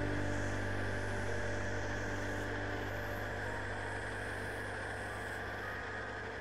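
Ultralight aircraft engine droning steadily in flight, heard from on board with a steady hiss of air, slowly getting quieter.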